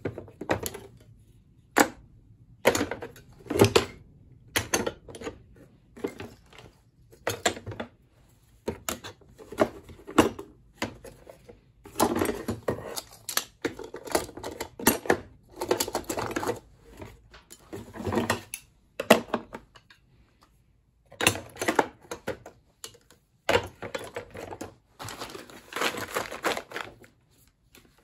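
Hand tools being packed back into a toolbox one after another: irregular knocks, clunks and metal clattering as each tool is set down among the others.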